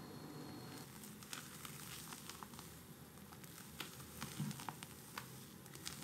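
Silicone spatula folding thick egg-foam sponge cake batter in a glass bowl: soft wet squishing of the batter with scattered light clicks, irregular as the spatula turns the mix over.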